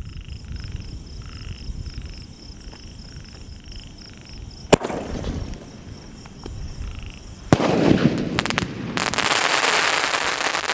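Sky shot aerial firework: a sharp launch bang about halfway through and a hiss as it climbs. A louder burst follows nearly three seconds later and turns into a dense crackle to the end, its crackling effect strong.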